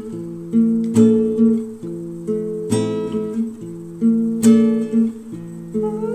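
Background music: an instrumental stretch of a pop song with acoustic guitar strumming chords.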